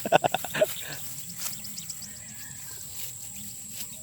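A person's voice in short rapid pulses for under a second at the start, then a low steady field background with a few faint scattered ticks and a thin steady high tone.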